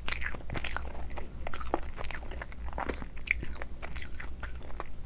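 A person eating with the mouth close to the microphone: chewing and biting, with many short, irregular mouth clicks and crunches.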